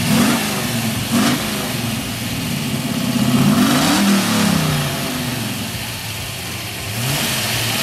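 Ford Falcon's V8 engine being revved in blips. Its pitch rises and falls several times, with the longest and loudest rev around the middle, then settles back toward idle with a small blip near the end.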